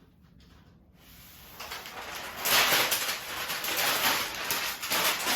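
Protective plastic film being handled and crumpled, a crinkling, crackling rustle that starts faintly about a second in and grows loud halfway through.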